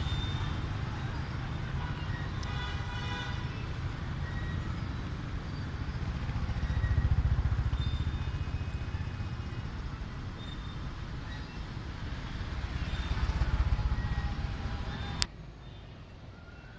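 Street traffic going by: motorbikes and cars passing in swells, with a short vehicle horn toot about three seconds in. Near the end the sound drops suddenly to a quieter traffic hum.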